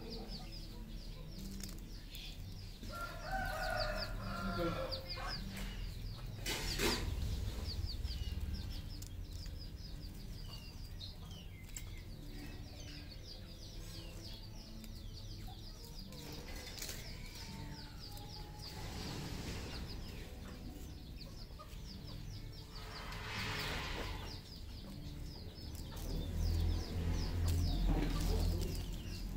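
Red junglefowl clucking and crowing in a few separate calls, over a steady high-pitched ticking.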